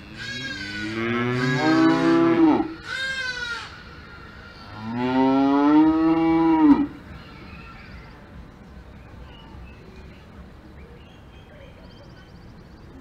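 Cows mooing: a long moo, a shorter one, then another long moo in the first seven seconds, followed by a quieter stretch.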